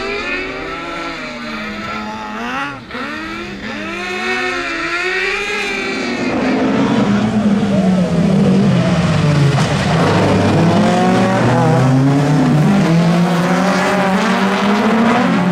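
Several rallycross cars racing past, their engines revving hard and dropping in pitch at each gear change or lift, several engine notes overlapping. It gets louder from about six seconds in as the pack comes close.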